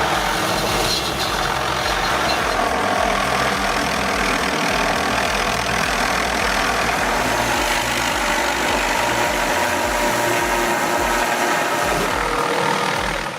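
Helicopter running steadily: a low, choppy rotor beat under a constant wash of engine noise.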